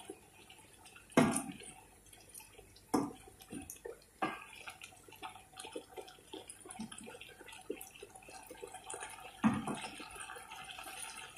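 Wooden spoon stirring chopped vegetables and chicken in a stainless steel pot: light scraping and rustling, with four sharper knocks of the spoon against the pot.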